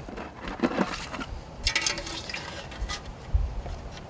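Live blue crabs being handled and cleaned by hand, their top shells pulled off. Shells click, crackle and scrape with wet squishing, and there are a couple of dull knocks near the end.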